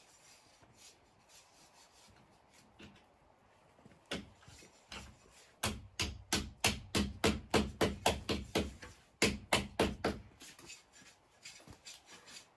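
Wood being rasped by hand in quick, even strokes, about four a second. They are loud for about four seconds in the second half, with a short break in the middle, after fainter scattered scraping.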